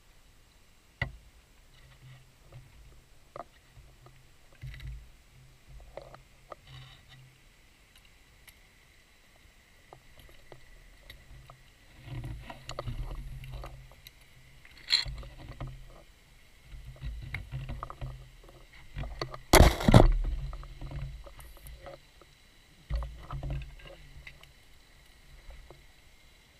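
Underwater scuba diving sounds: low rumbling bursts of exhaled regulator bubbles recurring every few seconds, with scattered small clicks and one loud burst about twenty seconds in.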